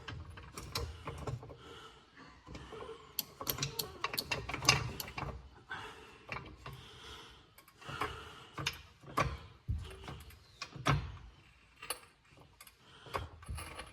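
Irregular metallic clicks and knocks of a jack and an inner tie rod removal tool being worked to break an inner tie rod loose, with some low thuds.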